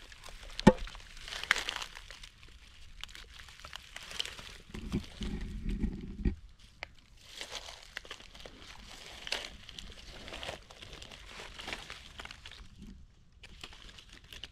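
Dry forest leaf litter rustling and crunching in irregular bursts, with a few sharp clicks, and a brief low rumble about five seconds in.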